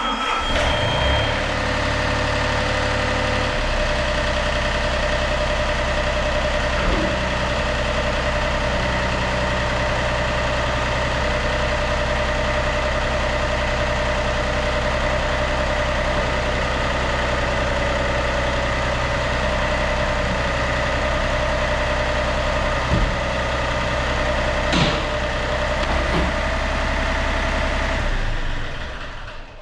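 Yanmar B37-1 mini excavator's diesel engine started up and running steadily at idle, then shut off near the end, run to check the machine after its hydraulic filter and strainer were changed. A steady high beep sounds in the first second.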